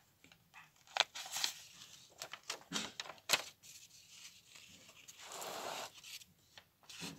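Quiet handling of a paper journal: light taps and rustles, with a longer soft rustle of a page being turned about five seconds in.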